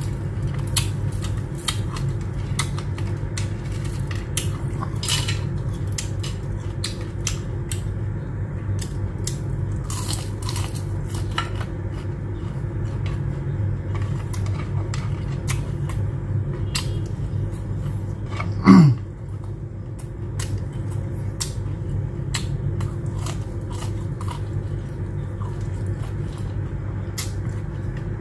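Close-miked chewing of fried shrimp tempura and rice, with many short wet mouth clicks and crunches over a steady low background hum. About 19 seconds in comes one brief, loud throat sound that drops in pitch.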